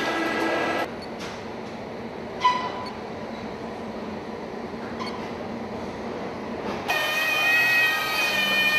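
Car assembly-line machinery: a steady machine hum with several whining tones, which changes at about one second to a quieter hall hum. A short electronic beep sounds a little later. Near the end a louder steady whine of several tones comes in.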